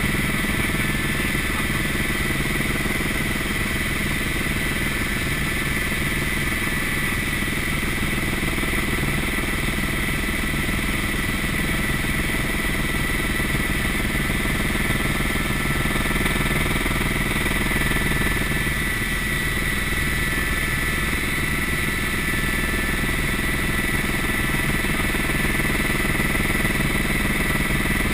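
Helicopter turbine engine and rotor heard from inside the cabin in flight: a steady drone with a high whine running through it.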